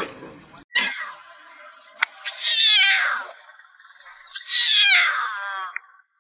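Lion cub mewing: high calls that fall in pitch, a short one about a second in followed by two long ones.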